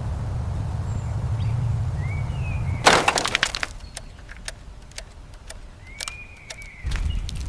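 Glass shattering with a loud crash about three seconds in, followed by scattered clinks of pieces falling, over a steady low rumble that drops away at the crash and returns near the end.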